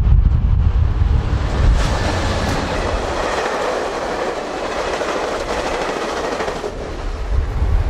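VIA Rail passenger train passing at speed: a steady rush of wheels on the rails with some clickety-clack, over wind buffeting the microphone. The train noise drops away suddenly about seven seconds in and the wind rumble rises again.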